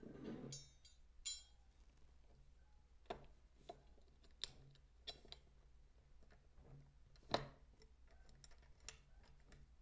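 Faint scattered clicks and light knocks of a monitor stand's base being twisted onto its neck by hand, its screw being turned in; the loudest knock comes about seven seconds in.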